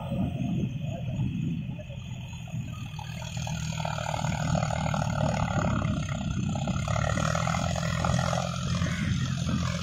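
John Deere four-wheel-drive tractor's diesel engine running steadily under load while it pulls a rotavator through a flooded paddy. From about three seconds in it gets louder and a higher note joins the low drone.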